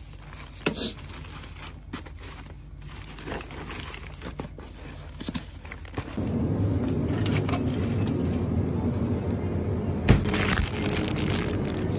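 Plastic food packaging rustling and crinkling, with a few light clicks, as food is packed into a soft cooler bag. About halfway through it gives way to the steady low hum of a convenience store, with a sharp knock and about a second of rustling near the end as a plastic water bottle is taken from a glass-door drinks case.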